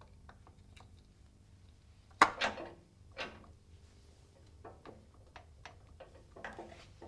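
Metal engine parts clinking and clanking as they are handled and fitted to the front of a bare diesel engine block. A sharp clank with a short ring comes about two seconds in and another a second later, then a run of lighter clicks and taps.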